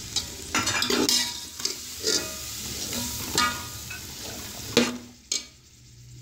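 Metal slotted spoon scraping and clinking against a steel cooking pot as peas and potatoes are stirred into sizzling oil-and-tomato masala. The knocks of the spoon come irregularly over a steady frying hiss, which dies down near the end.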